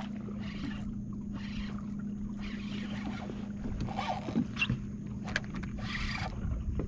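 Electric trolling motor humming steadily at one low pitch, with short soft bursts of rushing noise coming and going over it.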